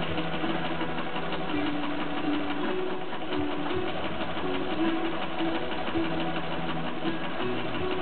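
Old Naumann sewing machine stitching steadily, a fast even clatter of the needle, under background music with held instrumental notes.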